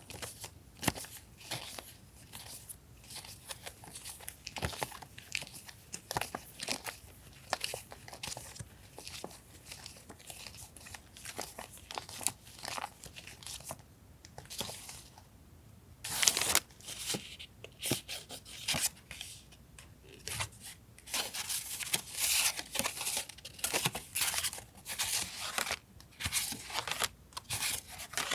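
Paper stationery and its packaging being handled: irregular rustling, crinkling and tearing with light taps, quieter briefly about halfway through and busier in the second half.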